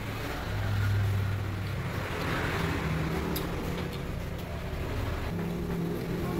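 Motor vehicle engine noise from passing road traffic, a low hum that swells about a second in, with a few light clicks.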